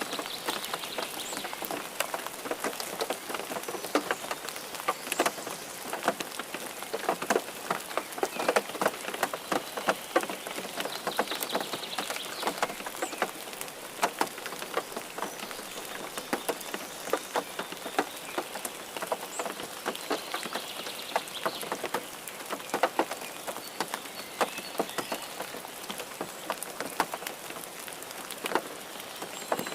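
Steady rain falling, with many close, irregular drops hitting a surface.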